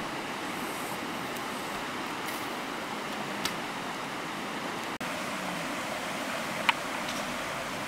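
Steady rush of running water, with a brief sharp click about three and a half seconds in and a louder one near the end. The sound cuts out for an instant about five seconds in.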